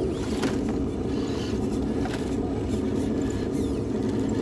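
Axial SCX10 II RC rock crawler's electric motor and geared drivetrain whirring steadily at crawling speed as it climbs over rocks, with a few light knocks.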